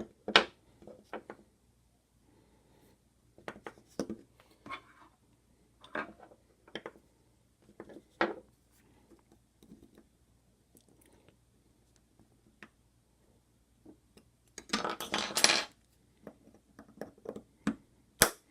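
Metal parts of a Kwikset deadbolt clinking and knocking as the lock is taken apart by hand, with scattered sharp clicks and a second-long burst of scraping and rattling about fifteen seconds in.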